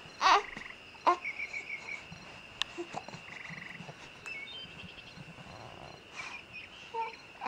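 Frog and insect chorus: a steady high chirring with short trilled chirps, and a few loud short croaks near the start and again near the end.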